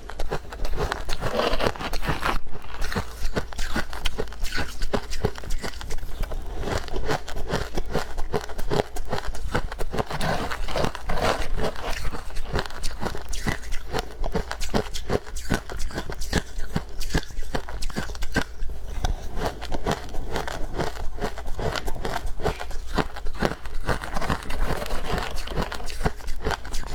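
Close-miked chewing and crunching of soft, powdery freezer frost: a rapid, continuous run of small crunches, with a steady low hum underneath.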